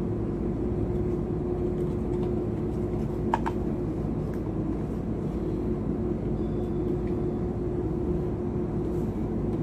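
Steady low background drone with a faint steady hum, and one short click with a brief ring about three and a half seconds in.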